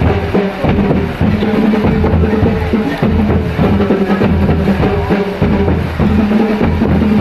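School marching band playing, with drums and bass drum beating a steady marching rhythm over sustained low band tones.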